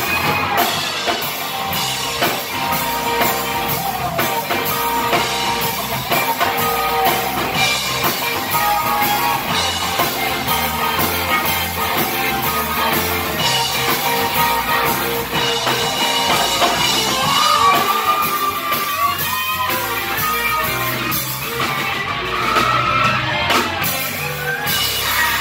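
Live rock band playing: a lead electric guitar over bass guitar and drums, the guitar bending and wavering its notes in the second half.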